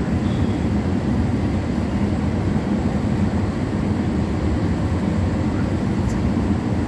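Steady low rumble of running machinery, even throughout with no distinct knocks or changes.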